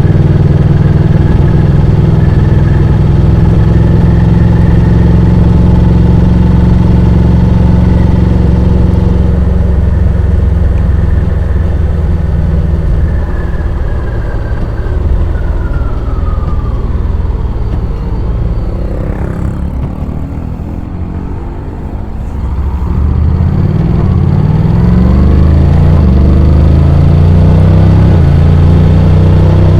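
Honda X-ADV 750's parallel-twin engine running under way with wind on the microphone. The engine's pitch falls as the scooter slows in the middle, it is quietest for a couple of seconds, and then the pitch rises again as it accelerates near the end.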